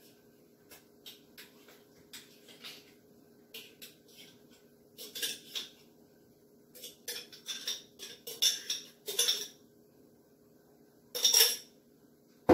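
Kitchenware clinking and clattering as coconut gel is spooned out of a jar for fruit salad. A string of light clinks, with louder clatters about five seconds in, between seven and nine seconds, and near the end.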